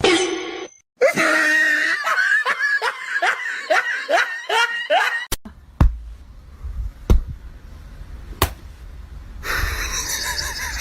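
A voice laughing in a run of about a dozen short bursts, roughly three a second, each falling in pitch, followed by a few sharp knocks.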